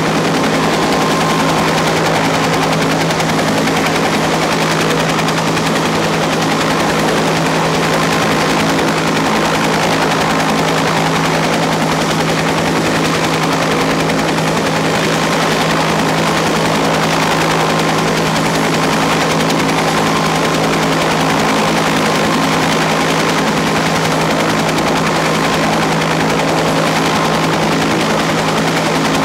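Jet aircraft engines running steadily and loudly: an even rushing noise with a steady low hum under it.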